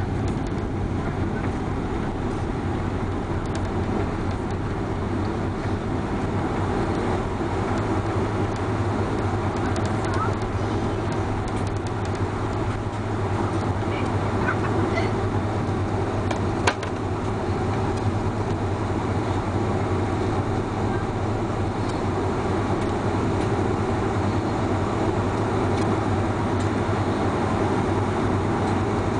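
Steady cabin noise inside a jet airliner rolling along the runway after touchdown: a low, even engine hum with rumble. There is a single sharp click about two-thirds of the way through.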